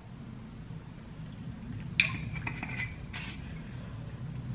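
Apple cider vinegar poured from a glass bottle onto salad greens: faint liquid pouring and splashing, with a sharper sound and a few short ticks from about two seconds in.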